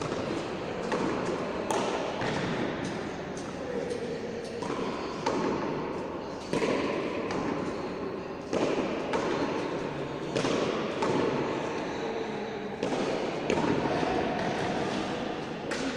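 Frontón ball rallying: sharp smacks of the ball against the wall and court every second or two, echoing off the walls, over low chatter from onlookers.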